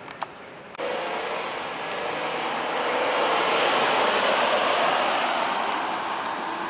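Police patrol SUV driving past: engine and tyre noise that starts abruptly about a second in, swells to its loudest around four seconds in, then fades as it moves away.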